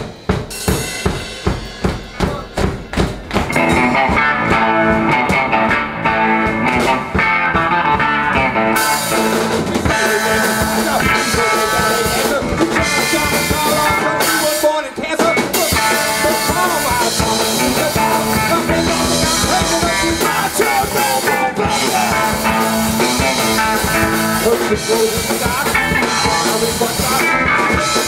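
Live punk band playing an instrumental opening: a steady drum beat alone at first, then the full band comes in about three seconds in and plays on loudly.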